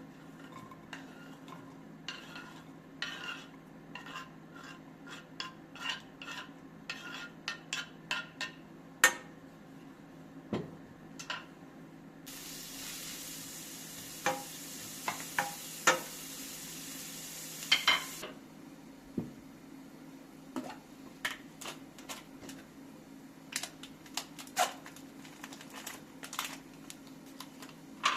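Kitchen utensils clinking and scraping against pots and dishes, in many short knocks, while food is stirred. Midway a steady hiss starts abruptly and cuts off about six seconds later.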